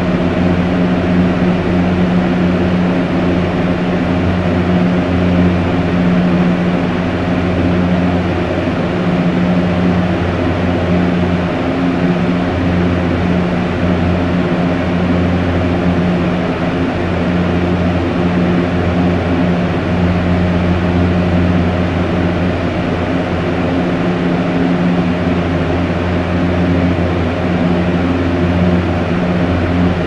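Fan running steadily: an even rush of air over a low, constant motor hum.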